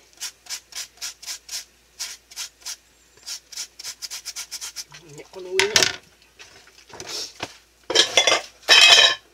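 Cucumber being shredded on a plastic julienne slicer: a short rasping stroke about three times a second, then a few louder clatters near the end as the slicer and vegetables are set down on the cutting board.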